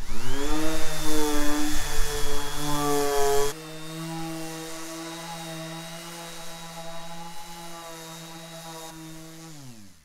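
Electric random orbit sander spinning up and running steadily as it sands the old finish off a wooden tabletop with 80-grit paper. It sounds quieter from about three and a half seconds in, and winds down with a falling pitch at the very end.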